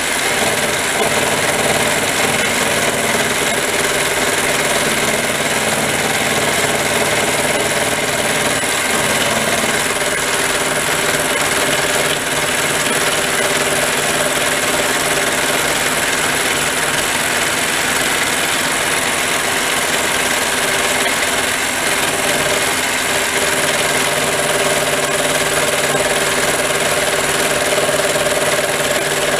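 Harbor Freight mini lathe running steadily at about 1,125 RPM during a milling setup: a continuous motor and gear whine with several steady tones. A higher tone comes in about three-quarters of the way through.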